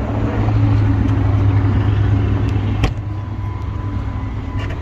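Car engine running with a steady low hum and road rumble. There is a single sharp click about three seconds in.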